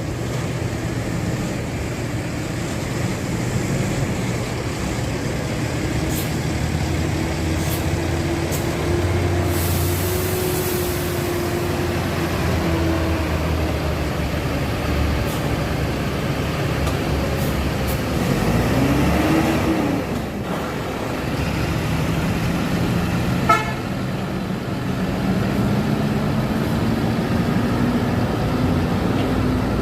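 Diesel bus engine running as the bus pulls out, its pitch slowly rising and falling with the revs. A short hiss of air comes about ten seconds in, and a brief sharp click comes later.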